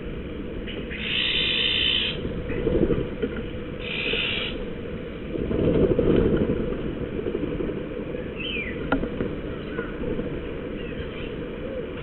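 Two short, harsh rasping calls of an Iberian magpie, one about a second in and one about four seconds in, over a steady low rumble. A louder low rush comes about six seconds in.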